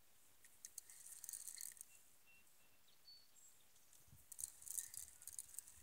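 Faint, quick high-pitched clicking and rattling in two spells of about a second and a half each, with a soft knock just before the second spell and a few brief faint chirps.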